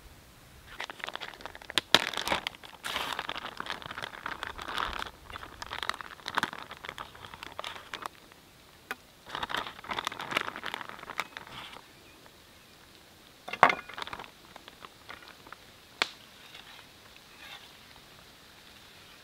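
Plastic food packaging crinkling in irregular patches as raw chicken breasts are pulled from the bag and laid in a steel frying pan, with a few sharp knocks, the loudest about two-thirds of the way through.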